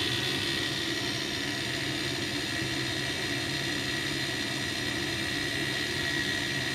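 Ideal Mexico HE30 gas boiler running with the burner lit: its combustion fan, a bit noisy, gives a steady whirring rush with a constant high whine.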